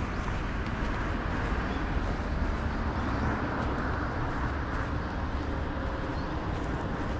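Street ambience: a steady hum of road traffic from cars on the multi-lane road alongside, with no single event standing out.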